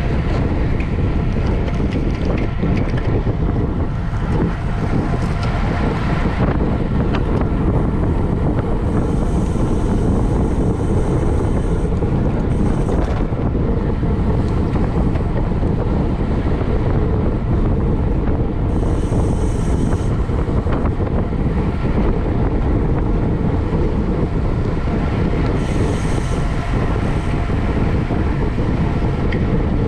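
Steady wind noise buffeting the microphone of a camera moving at racing speed on a bicycle, with a few brief faint hisses partway through.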